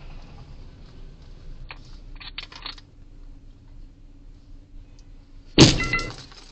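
A few light clicks inside the car, then about five and a half seconds in a single sudden loud thump as the car rear-ends the sedan ahead, dying away within half a second.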